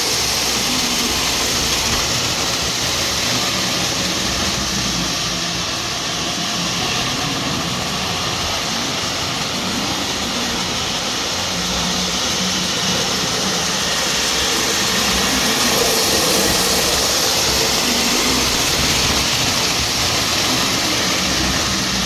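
O gauge model locomotive running steadily on the track, its electric motor whirring and wheels rolling on the rails, a little louder about two-thirds of the way through. It runs smoothly on freshly cleaned wheels and track, purring like a kitten.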